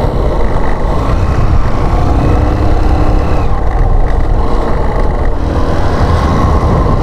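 Motorcycle running as it is ridden along a road: a loud, steady low rumble.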